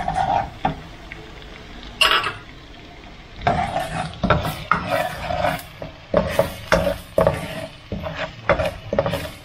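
A spatula stirring and scraping palo (five-spice) powder as it is stir-fried in hot oil in a pan, with a light sizzle. There is one clank about two seconds in, then quick scraping strokes about two or three a second.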